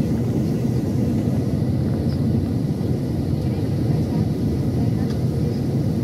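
Steady cabin drone of a Boeing 737-800 in flight, heard from a window seat beside the wing: the low rumble of its CFM56-7B turbofan engine mixed with airflow over the fuselage, unchanging throughout.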